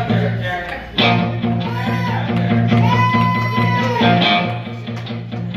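Live rock band playing an instrumental passage: bass guitar driving on evenly repeated low notes under drums, with electric guitar on top. A lead note bends near the two-second mark, then a long high note is held for about a second.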